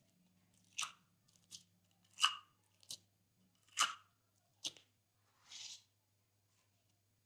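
Glossy slime being pressed and worked by hand, giving about seven short, crisp pops and clicks roughly one every second or less, with a softer, longer crackle near the end.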